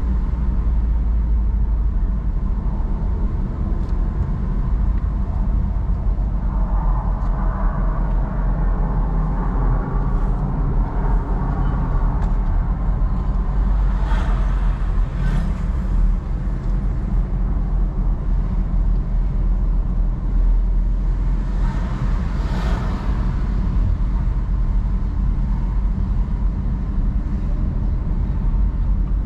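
A car driving at a steady town speed, its road and engine noise a constant low rumble heard from inside the cabin. Two brief swells of hiss come about halfway through and again a little later.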